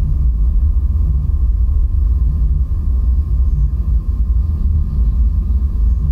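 Loud, steady low rumble with faint steady tones above it.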